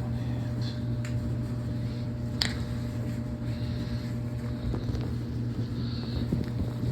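Steady low hum with two sharp clicks, about one and two and a half seconds in.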